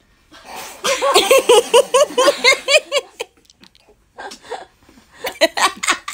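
Women laughing: a fast run of high-pitched giggles starting about a second in and lasting about two seconds, then more scattered bursts of laughter near the end.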